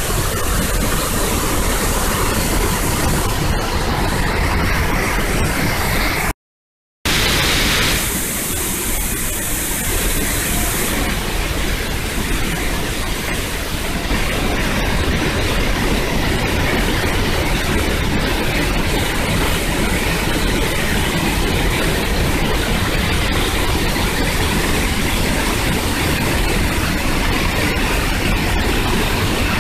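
Large waterfall heard close up: a loud, steady rush of falling water. The sound drops out completely for under a second about six seconds in, then carries on unchanged.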